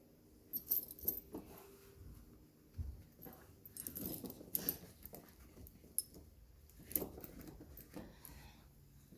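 Steel tire chain links jangling and clinking as the chain is handled and hooked up behind the tire, in irregular bursts of sharp metallic clicks.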